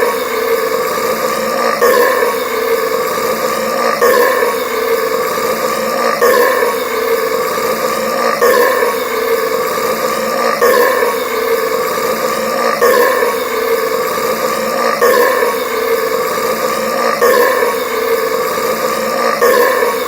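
A person's long burp, the same burp repeating about every two seconds in an even loop. The burping is brought on by drinking Sprite Cranberry soda.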